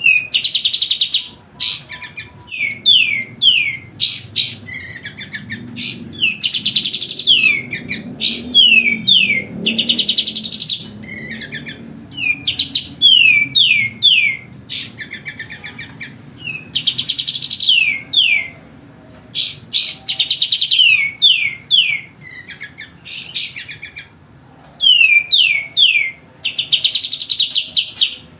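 Kapas tembak bulbul singing non-stop: fast rattling trills alternating with runs of three or four quick downward-sweeping whistles, the phrases repeating every few seconds.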